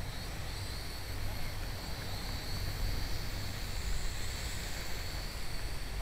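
Blade mQX micro quadcopter's motors whining, a thin high tone that wavers slightly in pitch as it flies, over a low rumble of wind buffeting the microphone.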